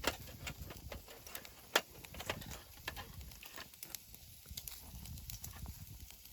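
Campfire crackling, with irregular sharp pops over a low rumble; the loudest pop comes just under two seconds in.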